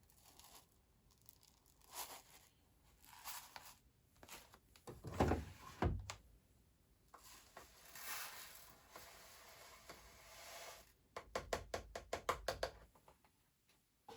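Scattered handling noises: soft knocks and rustles, a heavier low thud about five seconds in, and a quick run of clicks near the end.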